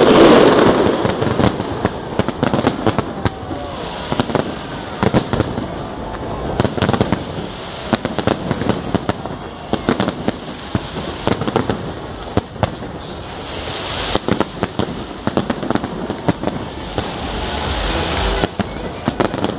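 Fireworks display going off: a big burst of bangs at the start, then many sharp bangs and crackles in quick, irregular succession.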